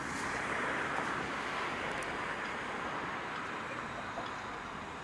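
Narrow-gauge steam locomotive moving slowly with a steady hiss of steam, easing off a little toward the end.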